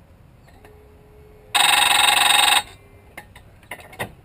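A loud, steady electric buzzer tone sounds once for about a second, with a few light clicks after it.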